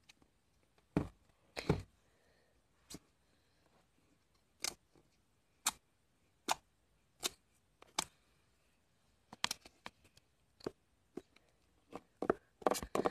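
Fingers poking and pressing thick white slime in a clear plastic tub, making short, sharp pops and clicks at irregular intervals, bunched more closely near the end.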